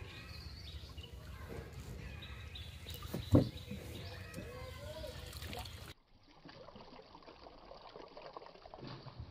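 Water trickling and dripping as a cast net's weighted skirt is dipped into a pond and lifted out, with one sharp knock a little past three seconds and faint bird chirps. The sound turns quieter and duller about six seconds in.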